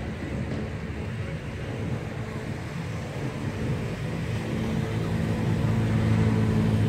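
Outdoor traffic noise with a steady low engine hum from a motor vehicle, growing louder over the last couple of seconds.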